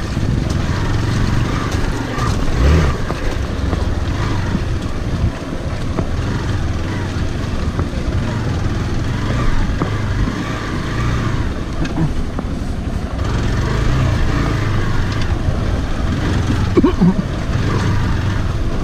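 Motorcycle engine running steadily at low revs as the bike crawls over a muddy, rocky track, with a few brief knocks from the rough ground.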